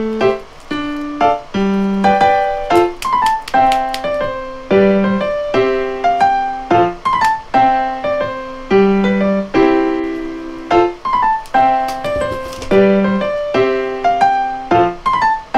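Background piano music: a light, bouncy melody of short notes over a repeating low pattern.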